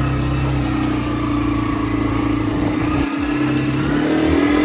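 Hero Xtreme 125R's single-cylinder engine running under way, with a brief drop about three seconds in and the pitch rising near the end as it accelerates.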